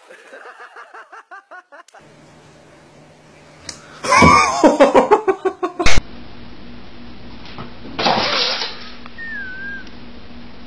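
People laughing in rapid pulsed bursts, loudest and hardest about four to six seconds in, with a shorter burst about eight seconds in.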